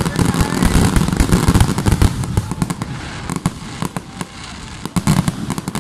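Aerial fireworks display: a dense barrage of bangs and crackling for about two seconds, thinning out to scattered pops, with a short cluster of bangs near the end.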